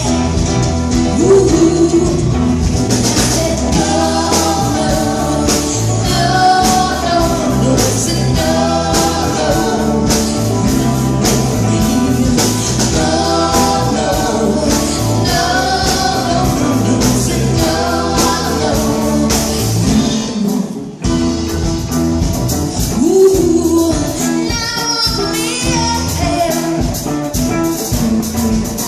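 Live band playing a cover song: singing over a steady beat with tambourine, with a brief drop in the music about two-thirds through.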